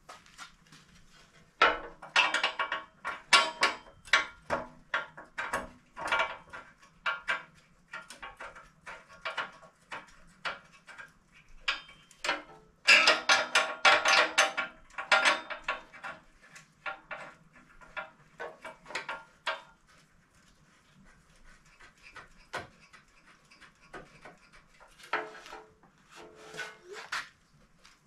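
Irregular clattering, rubbing and knocks from a heavy steel aftermarket front bumper being handled and shifted into line on a padded floor jack against the truck's front end. The noise comes in two busy spells, then only scattered taps, with a couple of short squeaks near the end.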